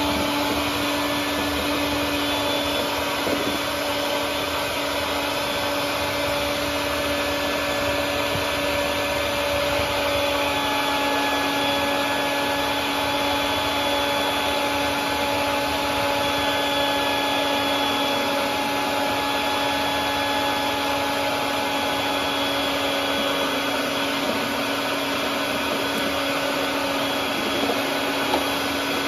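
Wet/dry vacuum running steadily at one even pitch as its hose nozzle sucks up leftover defrost water from the floor of a refrigerator compartment.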